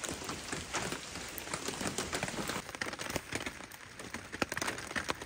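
Steady rain falling: an even hiss of drops, with many sharp single drops ticking through it.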